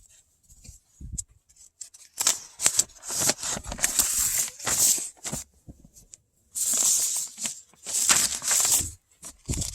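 Wiring harness and plastic fuse-box connectors being handled up close: a series of short rustling, scraping bursts with small clicks.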